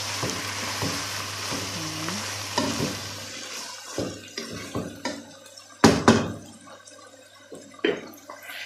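Chicken pieces sizzling in a pot while being stirred with a wooden spoon. After about three seconds the sizzle dies down and a series of sharp knocks follows, the loudest a double knock about six seconds in, as the wooden spoon knocks against the pot.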